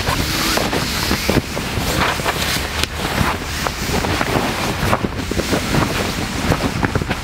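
A large rug rustling and brushing against the tent floor as it is spread out and smoothed by hand, with many small scuffs and soft knocks over a steady windy hiss.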